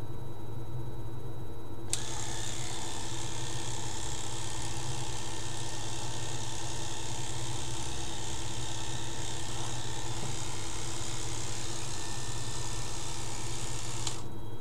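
Electric hair clipper switched on about two seconds in, buzzing steadily as it is run over the scalp to shave the head bald, then switched off near the end.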